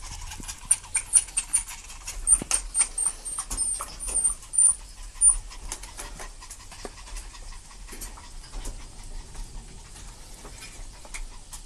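Dogs: a puppy play-biting at a hand, with a second dog panting. In the first half comes a quick run of short, very high squeaks mixed with sharp clicks; after that only softer scattered clicks.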